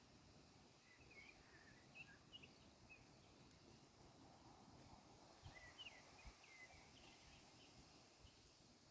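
Near silence outdoors, broken by a few faint, high bird chirps in two short clusters, about a second in and again past the middle.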